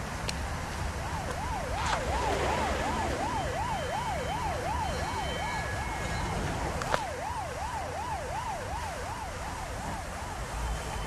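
Emergency siren in a fast yelp, its pitch swinging up and down about three times a second and fading near the end, over a low steady street rumble. A sharp click about seven seconds in.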